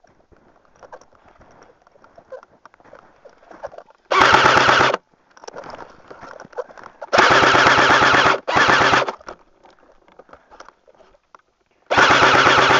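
Airsoft gun firing on full auto in four rapid bursts of about a second or less each: one about four seconds in, two close together midway, and one near the end.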